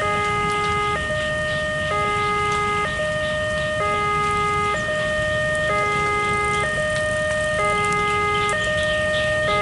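Railway level-crossing warning alarm sounding, a two-tone signal that alternates evenly between a lower and a higher tone about once a second: the crossing is closed for an approaching train.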